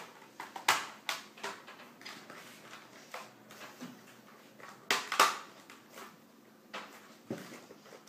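Scattered sharp plastic clicks and knocks of a laptop's casing and parts being handled and pressed back into place during reassembly, the loudest about a second in and around five seconds in.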